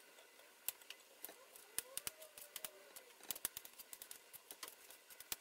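Faint, irregular light clicks and taps from ingredients being put into a blender jar.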